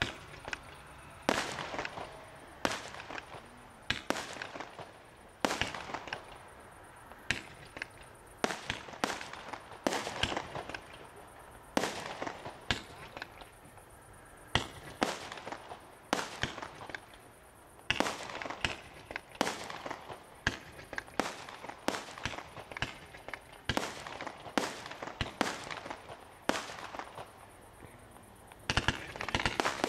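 Fireworks display: a long, irregular string of sharp bangs from bursting fireworks, about one or two a second, each trailing off after the blast.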